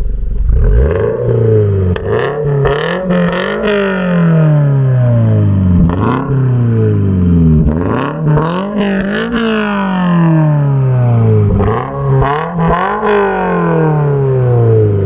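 Toyota GR86's 2.4-litre flat-four engine revved repeatedly through an aftermarket AWE Touring exhaust: the pitch climbs quickly, then falls back slowly, several times over, with a few short sharp cracks.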